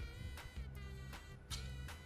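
Background music: a bass line under a high melody, with a few sharp clicks.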